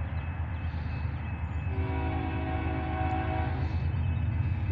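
Diesel locomotive air horn of an approaching BNSF freight train sounding a chord in a long blast that starts about two seconds in and breaks off shortly before the end, then begins again. Underneath it is a steady low rumble that slowly grows louder.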